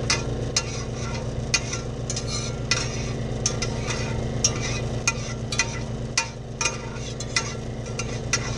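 Butter sizzling in a hot skillet on a camp stove, with sharp, irregular crackles and pops about one or two a second. A steady low hum runs underneath.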